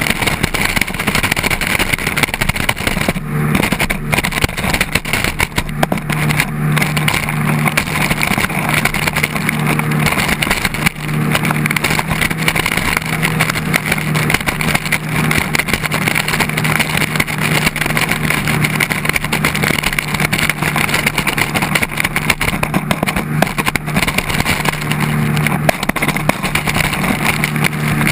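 Jet ski engine running steadily under load while towing a wakeboarder, its hum holding an even pitch with only slight changes. Over it comes the loud, continuous rush of spray and churning water from the jet wake close by.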